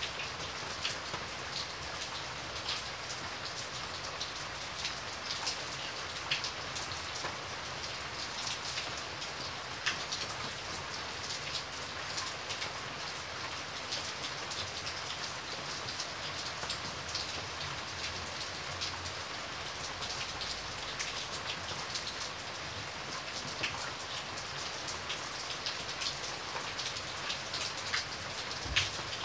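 Steady rain falling, with the sharper hits of single drops standing out here and there.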